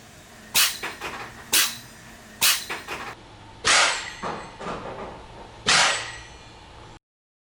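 An American Curl cat sneezing five times in a row, each sharp sneeze followed by a few softer ones.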